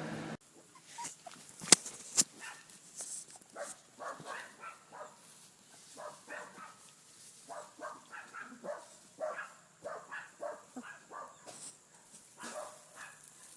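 Young wolf hybrid pups whimpering and squeaking in many short, high cries, with two sharp clicks about two seconds in.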